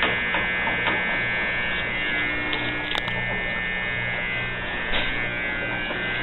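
Steady electrical hum with a high buzzing whine over it, and a few faint taps.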